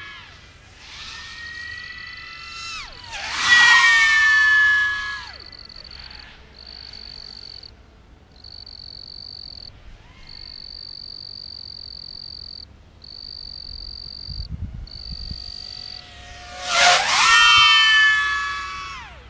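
A 5-inch racing quadcopter on a 6S battery, a Flywoo Mr Croc, flies past three times: a weaker pass a second or two in, then loud passes at about four seconds and near the end. Each pass is a high propeller-and-motor whine that drops in pitch as the drone goes by. Between the passes a single high steady whistle comes and goes in broken stretches.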